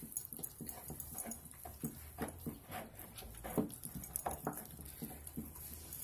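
A husky puppy and a malamute puppy chewing raw chicken drumsticks, bone and all: irregular wet crunches and clicks, several a second.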